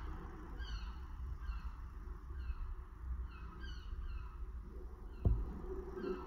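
Birds calling over and over, short falling notes several times a second, over the soft steady hiss of a small oxy-acetylene torch flame welding lead. A single sharp knock about five seconds in.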